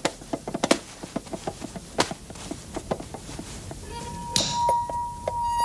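Irregular light wooden taps and knocks from marionettes moving on the puppet stage. About four seconds in, a steady high tone and a brief hiss come in as music begins.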